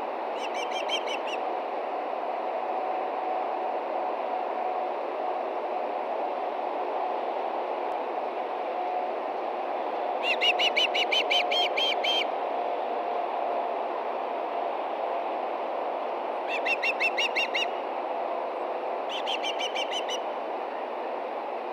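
Osprey calling in four bursts of quick, repeated whistled chirps, the longest about two seconds, over a steady hiss of background noise.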